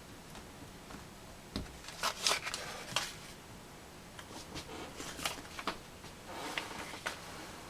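Irregular light clicks and plastic scraping from a laptop screen assembly being handled and fitted by hand, loudest in a cluster about two to three seconds in.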